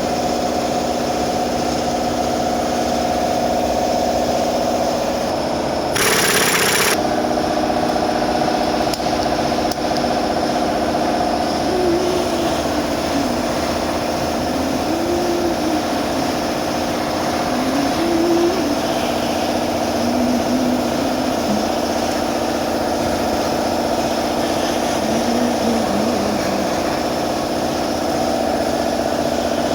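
Steady hum of running machinery with several held tones. About six seconds in, a loud rushing burst lasts about a second.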